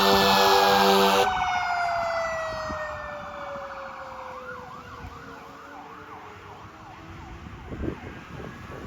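Fire engine air horn blasting, then cutting off abruptly about a second in. Under it a siren winds down in one long falling pitch as the engine passes. A fainter siren yelps up and down behind it.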